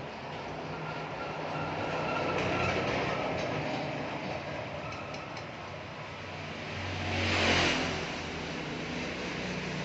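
Motor vehicles passing by, one swelling up and fading about two to three seconds in, and a louder one peaking and fading about seven and a half seconds in.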